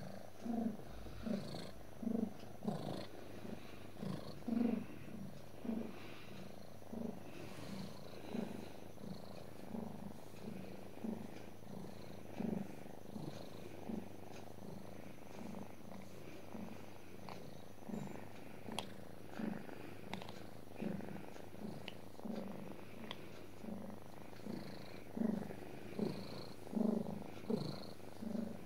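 Domestic cat purring steadily as it is petted, the purr swelling and easing in a regular rhythm a little faster than once a second.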